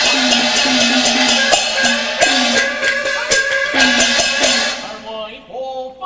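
Peking opera percussion ensemble (gongs, cymbals and drum) playing a fast, loud battle accompaniment, with sharp strokes and a gong's falling ring repeating about every second. It stops about a second before the end, and a performer's drawn-out, gliding stage voice begins.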